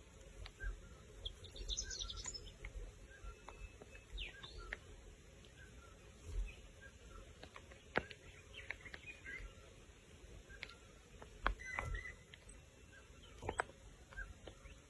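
Small birds chirping intermittently with short, high chirps and little call clusters. A few sharp clicks stand out, about eight, eleven and a half and thirteen and a half seconds in, over a faint low rumble.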